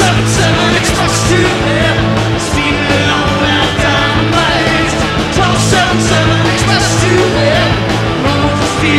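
Rock music with a voice singing over it, loud and steady.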